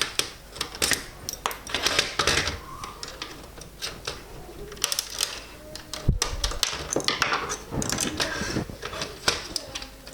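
Plastic parts of a BMW instrument cluster clicking, tapping and rattling as it is taken apart by hand, with uneven bunches of clicks and some scraping.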